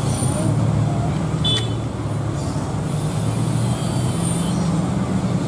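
Steady low engine rumble, with a brief sharp high squeak about one and a half seconds in.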